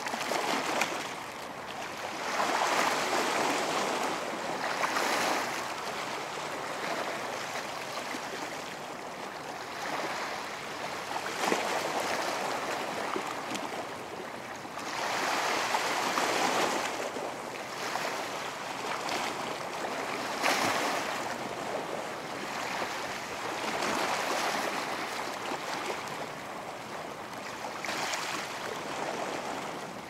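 Atlantic Ocean surf on a beach, waves breaking and washing in, swelling and fading every few seconds.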